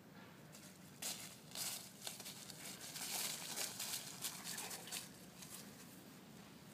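Dry fallen leaves rustling and crackling as two Pyrenean mastiff puppies tramp and nose through them. The crackling runs from about a second in to about five seconds.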